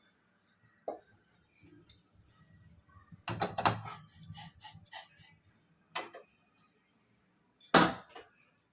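Kitchen utensils and pots being handled while tea is made, giving scattered clinks and knocks: a quick cluster a few seconds in and one loud knock near the end.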